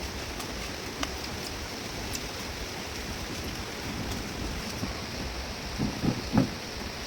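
Steady rain hissing, with scattered drop ticks and a few short low bumps near the end.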